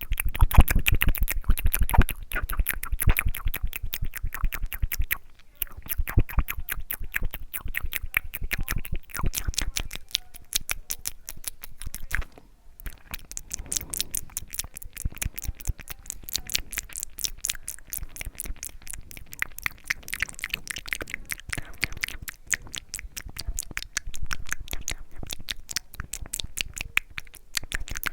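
Mouth sounds: rapid wet clicks and smacks of lips and tongue, many per second, with brief pauses about five and twelve seconds in.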